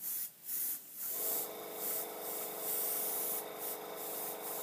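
An airbrush compressor starts about a second in and runs with a steady hum, under a hiss of air broken by short gaps.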